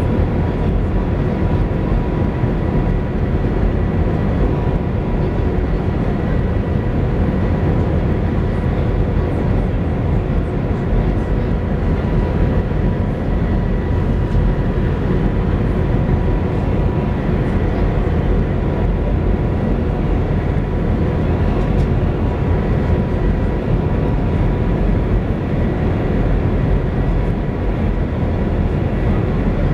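Steady cabin noise inside the Shanghai Maglev train running at high speed: a constant low rumble of rushing air and running noise, with a faint steady high whine through it.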